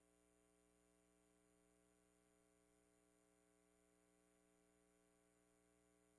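Near silence with only a faint, steady hum.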